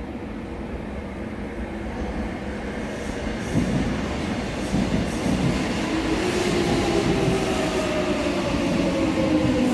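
A Seoul Subway Line 8 electric train pulls into the station, getting louder as it nears, with a couple of knocks from the wheels. About halfway in, its traction motors begin a whine in several tones that falls in pitch as the train slows.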